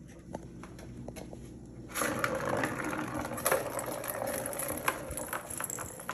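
Rustling and scraping with many small clicks as things are handled, starting about two seconds in.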